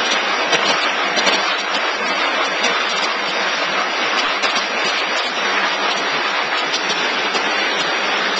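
Paper hamburger-box forming machine running: a steady, dense mechanical clatter and hiss.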